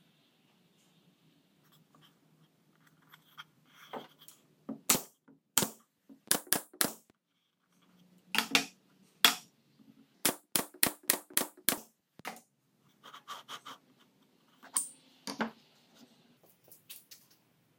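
Pneumatic nail gun firing nails through a plywood board into a wooden jig: a dozen or more sharp clacks, some single and some in quick runs of several a second, with quieter scraping and knocking of wood being handled between them.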